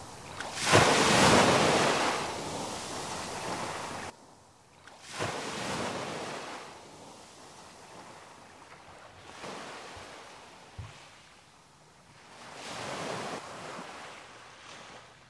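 Small waves breaking and washing up a sandy beach, coming in four swells; the first and loudest cuts off abruptly about four seconds in, and the later ones are softer.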